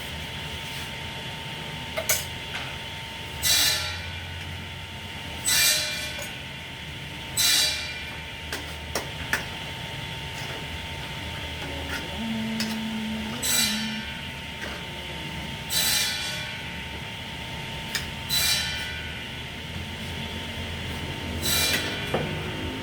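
Cooking utensil scraping and clanking against a pan while noodles are stir-fried, in short strokes about every two seconds over a steady hum.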